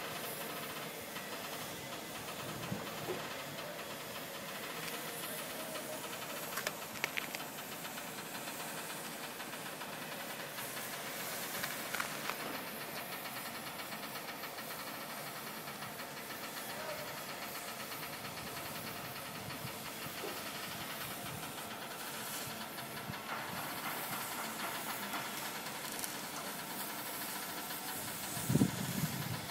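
Steady hissing outdoor background noise, with a few faint clicks and one short low thump near the end.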